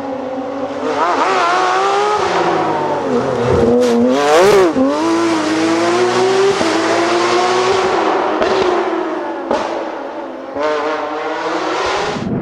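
Porsche rally car engine at full throttle, revving up and down through the gears. About four and a half seconds in it passes close by, its pitch peaking and then dropping away. The sound changes abruptly a couple of times as the engine note jumps to a different pitch.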